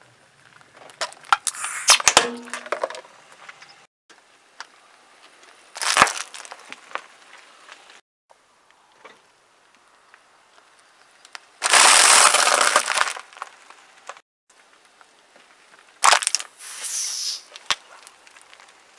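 Car tyre rolling over and crushing objects on asphalt, in four separate crunching and cracking bursts with abrupt breaks between takes. A plastic shower-gel bottle is squashed about two seconds in. The longest and loudest is the crunch of a pack of dry instant noodles about twelve seconds in.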